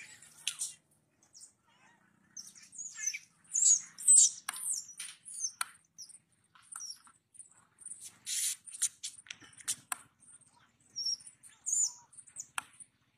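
High-pitched animal squeaks and chirps: short calls in irregular clusters, some sliding in pitch, with a few sharp clicks between them.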